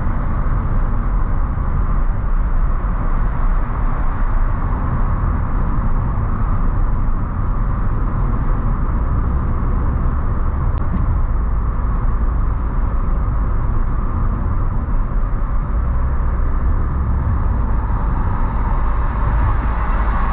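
Car driving steadily at highway speed: a constant low rumble of tyres on the road and the running engine, with no change in pace.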